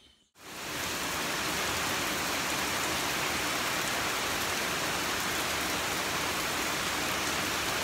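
Heavy rain falling, a steady, even hiss that fades in about half a second in.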